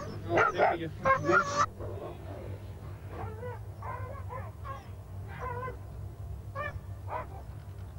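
Huskies yelping and squealing in a dog fight: several loud, high cries in the first second and a half, then fainter, scattered yelps.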